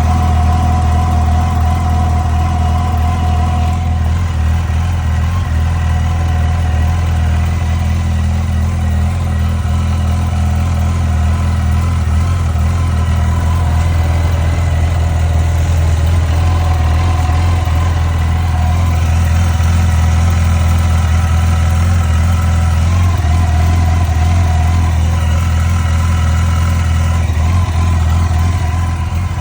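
Yamaha FJR1300's inline-four engine idling steadily, with a ticking noise from the engine.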